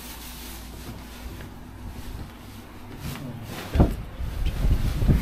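A steady low hum, then from about three and a half seconds in a run of irregular dull thumps.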